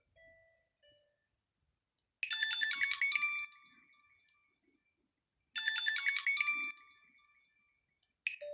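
Alcatel Pixi 3 ringtone: a short run of quick, high chiming notes that rings on and fades, played twice about three seconds apart.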